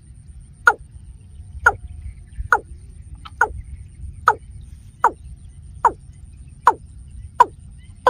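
Watercock call: a short note falling in pitch, repeated steadily about once every 0.8 s, about nine times.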